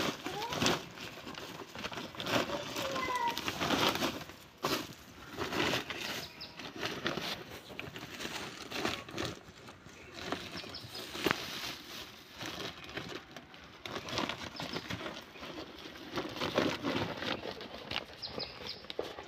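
Woven plastic sacks rustling and crinkling as they are handled, with wet soil shifting and scraping inside, in irregular short rustles and scrapes.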